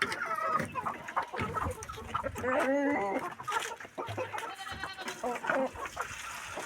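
Chickens clucking, with several short calls and one longer pitched call about two and a half seconds in.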